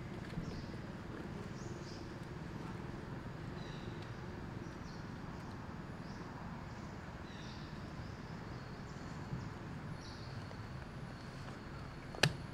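Outdoor background: a steady low rumble, with short faint high chirps now and then and one sharp click near the end.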